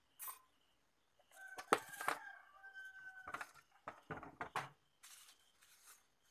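A rooster crowing once in the background, one long held call, over a string of sharp knocks and clicks from hands handling the TV set and its power cable.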